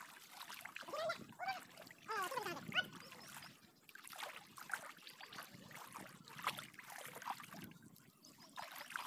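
Water trickling and splashing as a cylindrical ring trap net is dragged through shallow pond water and lifted, water running off its mesh. A short gliding call stands out about two seconds in.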